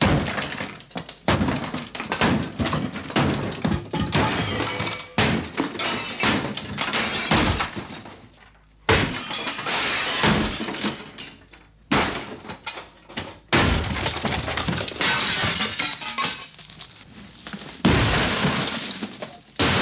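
A wooden chest of drawers being smashed with heavy blows, about one or two a second: wood cracking and splintering, with several longer crashes of breaking material in the second half.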